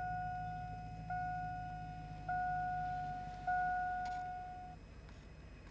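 Dashboard warning chime of a 2002 Chevrolet Avalanche ringing four times, about once a second, each a single bright tone that fades before the next, stopping near the end. Underneath, the freshly started 5.3-litre V8 idles with a steady low hum.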